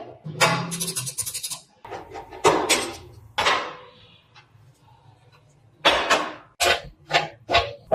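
Rough rasping strokes of a hand tool scraping or scrubbing a surface, coming in uneven bursts. A lull falls about four seconds in, followed by a run of about five quick strokes near the end.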